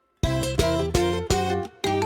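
Background music of plucked, pitched notes in a quick rhythm, starting after a moment of silence.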